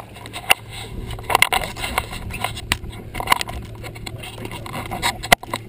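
Scattered clicks, knocks and scrapes of gear being handled aboard a boat, over a steady low hum, with one sharp knock a little after five seconds.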